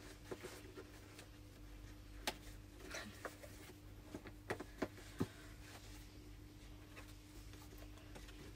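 Faint scattered clicks and light rubbing of a gift's packaging being worked open by hand, over a low steady hum.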